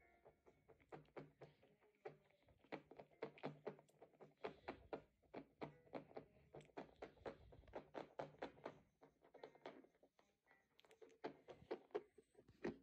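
Laptop keyboard being typed on one-handed: a quick, uneven run of sharp key taps, about three to five a second.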